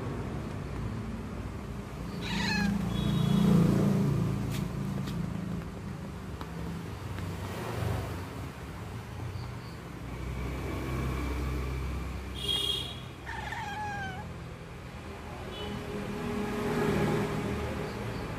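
Orange-and-white domestic cat meowing a few times while its back is patted: a short call with falling pitch about two seconds in, and a pair of calls near the twelve- and thirteen-second marks. A low rumble runs underneath, loudest a few seconds in.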